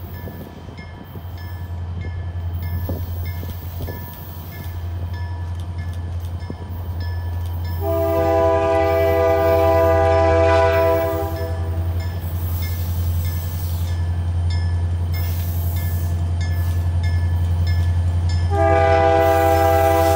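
Approaching EMD diesel freight locomotive, its engine droning steadily, sounding its multi-chime air horn: one blast of about four seconds starting about eight seconds in, and another starting near the end. The sound grows louder as the locomotive comes closer.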